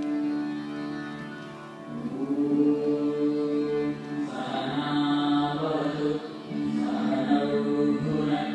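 Music with long, held singing voices, choir-like. It dips in loudness a second or two in, then swells back fuller.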